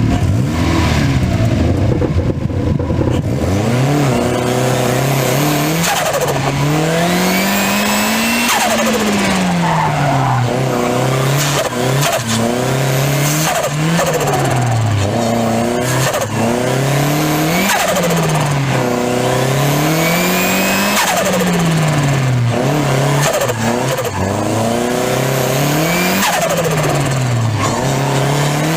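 Turbocharged Mazda MX-5 engine under hard driving, its revs climbing and dropping about every two seconds after a steadier first few seconds. A high turbo whistle falls away as the revs drop, with turbo flutter on throttle lift-off.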